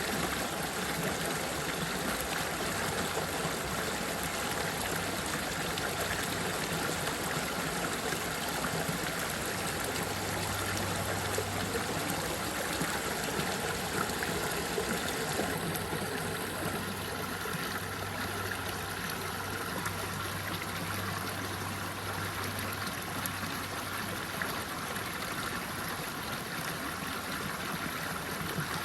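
Running water flowing steadily, a continuous rushing and trickling wash, with a faint low hum coming and going underneath.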